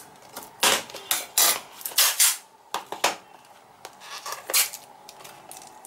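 Scissors cutting through sellotape on a small box: a run of short snips and scrapes of the blades, sparser after about three seconds as the box is handled.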